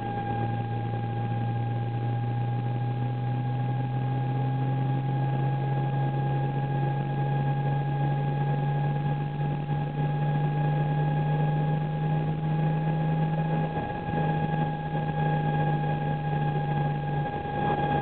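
Car running with an abnormal noise: a steady high-pitched whine that holds one pitch over a low drone. The drone rises slowly and dips twice near the end.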